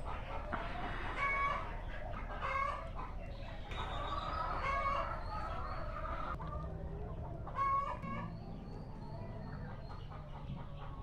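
A flock of laying hens clucking and calling, with louder calls standing out every few seconds over a steady low background.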